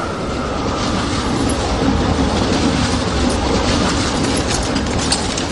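A train running steadily on the rails, with a few faint clicks of the wheels in the second half.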